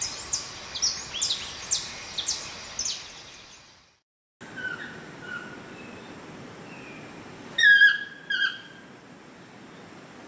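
A chestnut-mandibled toucan gives two loud yelping calls in quick succession. Fainter calls before them are taken to be its mate answering from further off. Over the first three seconds, a run of sharp, high, falling chirps repeats about twice a second, then fades out.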